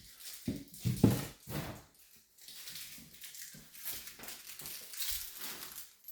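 Handling of a plastic packet of screws: irregular rustling and crinkling with small knocks, busiest in the first two seconds.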